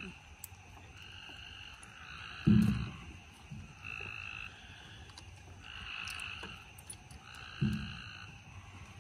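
A chorus of frogs calling, short trilled calls that repeat every second or two at a couple of steady pitches. Two loud, short, low thumps from close by come about two and a half seconds in and again near the end.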